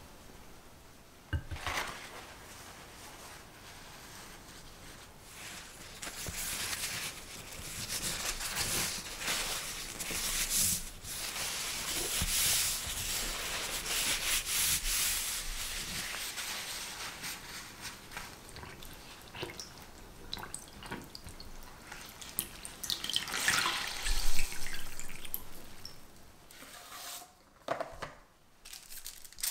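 Damp paper towels being handled and folded flat into a strip, an irregular rustling with dripping and small clicks that is loudest near the end.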